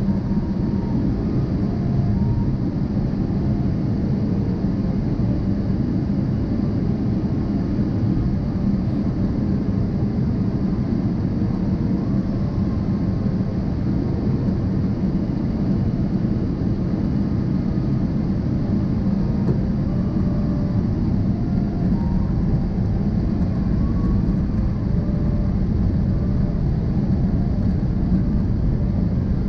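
Steady jet airliner cabin noise heard from a window seat over the wing on approach: an even, deep rumble of the engines and rushing air, unchanging in level.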